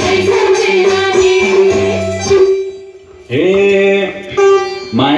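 Live Nepali dohori band music: keyboard and hand drums play a rhythmic groove that breaks off a little past halfway, then long held notes slide up into pitch and sustain.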